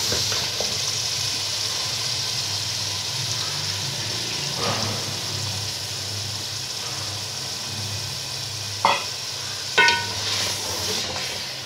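Mutton korma gravy sizzling in a metal pot as stock is poured in and stirred with a spatula, over a low steady hum. The spatula knocks against the pot a few times, twice sharply near the end.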